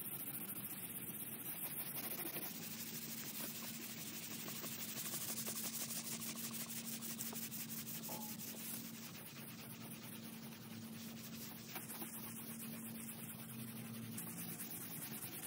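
Hand-sanding a painted wooden tabletop with a 220-grit sanding sponge: a continuous scratchy rubbing of quick back-and-forth strokes, smoothing down dried wood filler.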